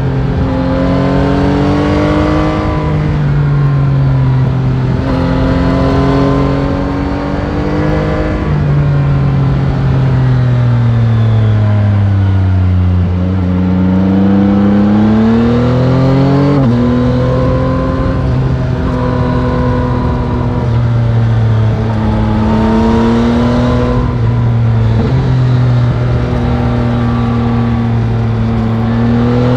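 Yamaha Tracer 9 GT's CP3 three-cylinder engine on the stock exhaust, heard onboard while riding: the revs climb and drop sharply at several gear changes, fall away to a low point about halfway through as the bike slows, then climb again through the gears. Wind rush runs underneath.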